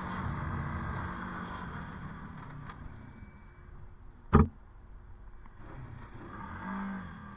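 Honda ATV engine running while riding across a field, easing off and fading over the first few seconds, then picking up again near the end. A single sharp knock, the loudest sound here, cuts in about four seconds in.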